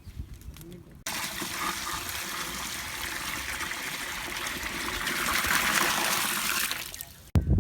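Water pouring or running in a steady stream, starting abruptly about a second in, growing a little louder, then cutting off suddenly near the end.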